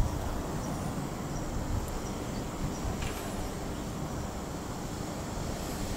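Steady outdoor background rumble of distant vehicles, with wind on the microphone and a faint click about three seconds in.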